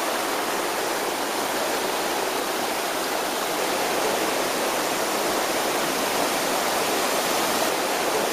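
Steady rush of fast-flowing stream water spilling over small cascades.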